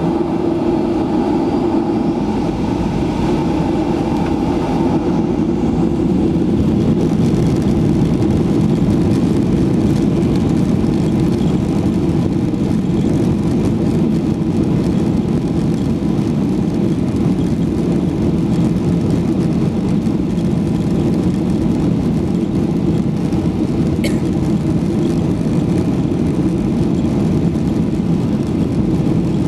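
Cabin noise of a Boeing 737-800 rolling on the ground: a steady, loud rumble from its CFM56 turbofan engines and the airframe, heard from a window seat beside the wing.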